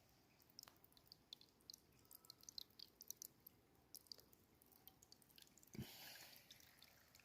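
Faint, scattered drips of rainwater falling on leaves and ground, irregular light ticks. A soft thump followed by a brief rustle about six seconds in.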